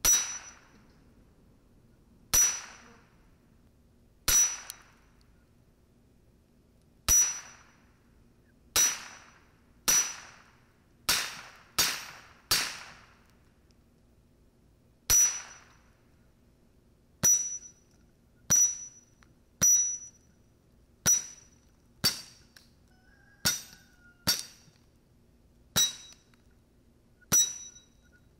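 Single .22 LR shots from an AR rifle fitted with a CMMG Bravo drop-in .22 LR bolt carrier conversion, about nineteen at an uneven pace of one every one to three seconds. Each sharp crack carries a short metallic ring.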